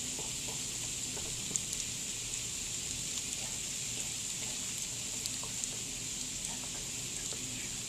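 Freezing rain and ice pellets falling: a steady high hiss with scattered small ticks of ice striking the house and window.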